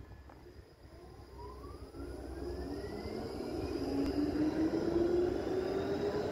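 Škoda Artic X34 tram pulling away and accelerating, its electric traction drive giving a whine that rises steadily in pitch and grows louder as it speeds up.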